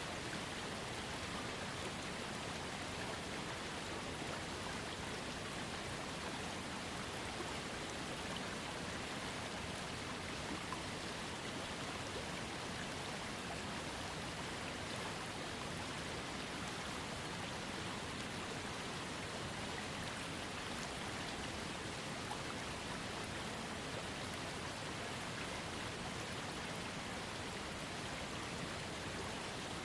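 Small waterfall splashing steadily into a trickling creek: an even rush of falling water with fine droplet patter on top.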